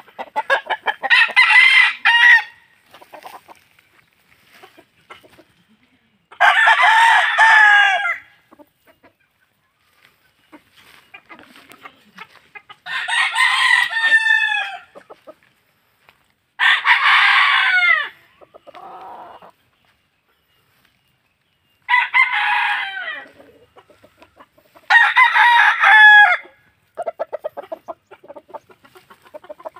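Gamecock roosters crowing: six long crows a few seconds apart, each ending in a falling tail, with quieter, lower calls between them and another crow starting at the very end.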